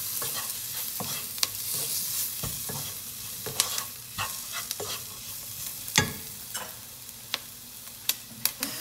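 Diced onions and curry spices sizzling in a non-stick frying pan as a slotted wooden spatula stirs and scrapes them, with sharp knocks of the spatula against the pan. The loudest knock comes about six seconds in. The sizzle slowly fades.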